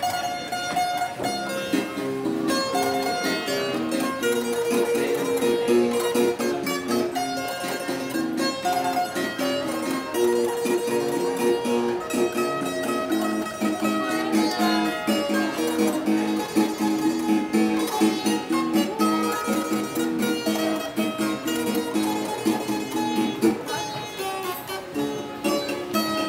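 Harp being played: a continuous flow of plucked notes, a melody over lower rolling notes.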